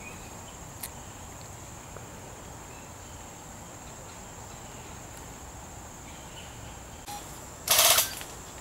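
Steady high-pitched insect drone, with one short, loud rush of noise lasting about half a second near the end.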